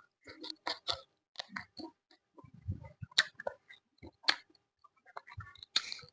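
A person chewing food close to the microphone: irregular, uneven clicks and short crunchy strokes of the mouth at work.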